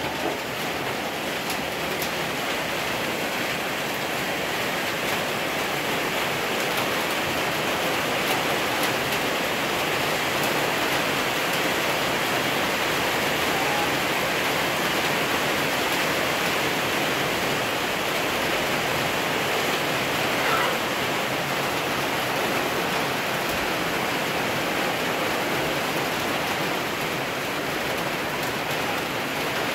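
Steady hiss of heavy rain, an even rushing noise with no let-up.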